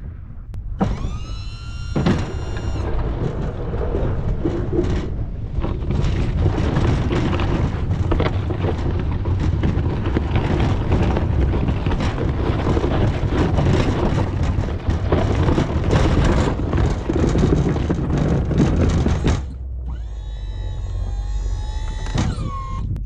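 Snow plow work with a 16 ft Sno-Power plow. The electric-hydraulic pump whines, rising in pitch about a second in and running again near the end as the blade is worked. In between, the vehicle and blade make a loud, steady rumble as they push and scrape through snow.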